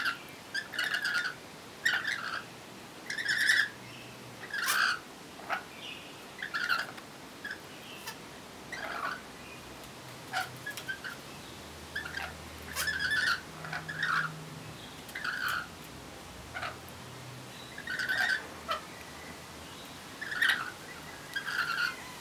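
Rainbow lorikeets calling in short chattering bursts, one every second or so with short gaps between.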